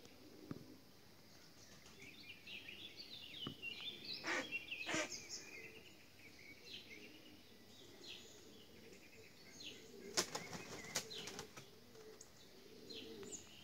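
A bird's wings flapping in two short bouts, about four seconds in and again about ten seconds in, over faint high chirping of small birds.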